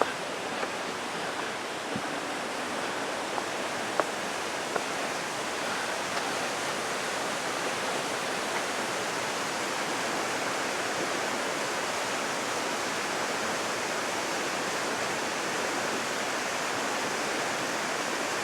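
Steady rushing of water from the Gunnison River falling and running in the canyon below, an even hiss that grows slightly louder. A few short sharp clicks sound over it, the loudest about four seconds in.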